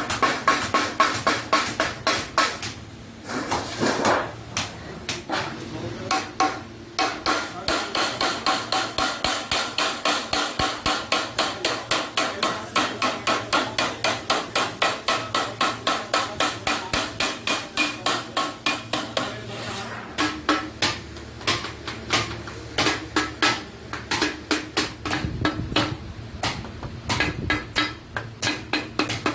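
A hammer beating iron sheet in a fast, steady rhythm of about four blows a second, each with a metallic ring. There are short breaks about three and six seconds in.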